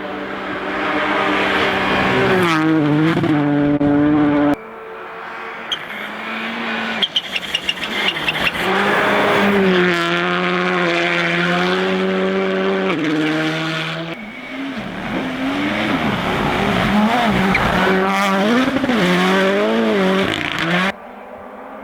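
Rally cars at speed, each engine's note rising and falling through gear changes and lifts. A quick run of sharp pops and cracks comes about six to eight seconds in. The sound switches abruptly from one car to the next three times.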